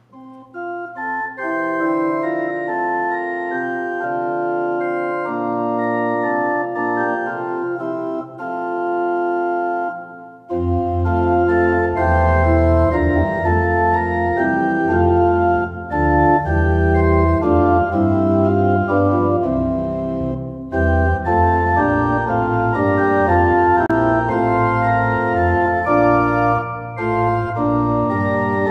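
Church organ playing slow, held chords in phrases with brief breaks between them. A deep pedal bass comes in about ten seconds in, and the sound grows fuller and louder.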